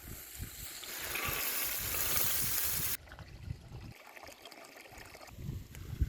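Liquid pouring or trickling, growing louder and brighter for about three seconds before it cuts off abruptly, followed by quieter handling noise with a few low thumps.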